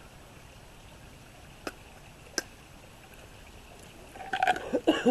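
Two sharp metallic clicks, then a burst of clatter near the end as a thin metal mess-kit pot is handled with its pot grip, taken off the fire and set down.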